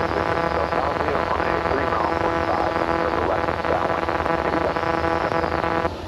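Aviation radio transmission in the cockpit headset: a buzzing, humming tone with a garbled, unintelligible voice in it, cutting off abruptly near the end. The light aircraft's engine drones steadily beneath.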